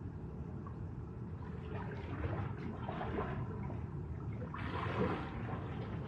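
Small sea waves washing in on the shore: a hissing wash about two seconds in and a louder one near the end, over a steady low rumble.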